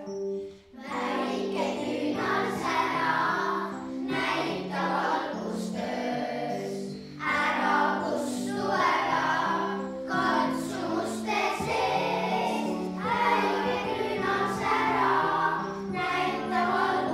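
A children's choir singing a song with keyboard accompaniment, beginning about a second in.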